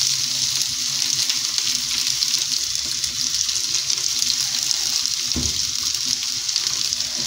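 Boiled potato pieces frying in melted butter in a non-stick pan, a steady sizzle. A soft knock about five seconds in.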